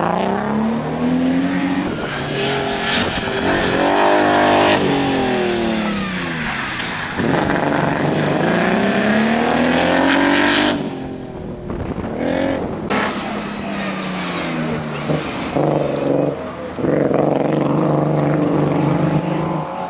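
BMW M3 Compact engine revving hard under acceleration, the pitch climbing and falling repeatedly as it is driven through the gears, with an abrupt lift-off about halfway through and a steady high-rev run near the end. The car has a misfire.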